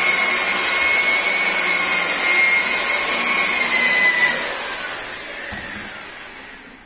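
Electric rotary car polisher with a foam pad running on a car door's paint. Its whine holds steady, then it is switched off about four seconds in and its pitch falls as it spins down.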